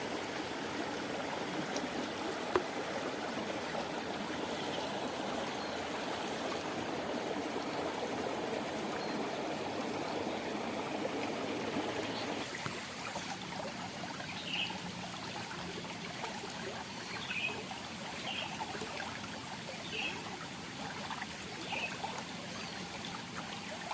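Water of a small irrigation stream running steadily, a little quieter from about halfway through. A few faint, short, high chirps come in the second half.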